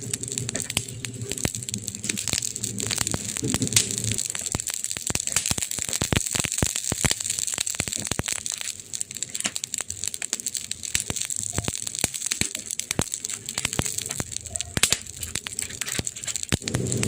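Wood fire crackling, with dense irregular pops and snaps over a steady hiss. A low hum sits under it for the first few seconds, fades out, and returns near the end.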